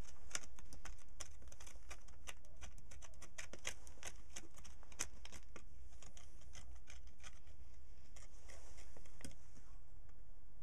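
An antler pick digging a small pit in stony soil: irregular sharp clicks and scrapes, several a second, as the tine strikes and levers out earth and small stones.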